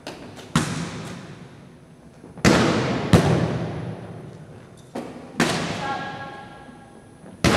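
Volleyball being hit over and over: about six sharp smacks, some in quick pairs, each ringing with the long echo of a large gymnasium.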